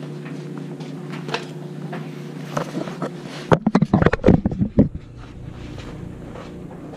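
A steady low hum, then about three and a half seconds in a second-long run of rapid rustling and knocking from the camera being handled and swung around.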